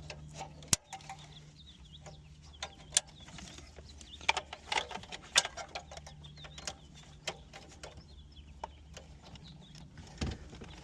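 Plastic wiring-harness connectors being handled and clicked into the back of a car radio head unit: scattered sharp clicks and light rattles at irregular intervals, over a faint steady low hum.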